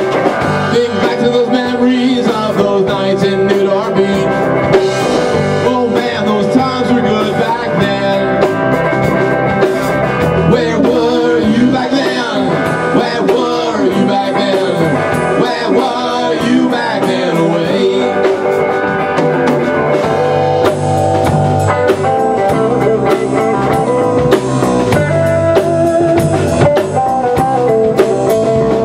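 Live band playing loud electric guitars over a drum kit, with a steady beat.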